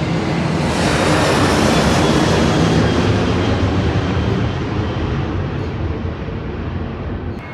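Airplane passing low overhead: a loud rushing engine noise that swells in the first second, peaks, then slowly fades.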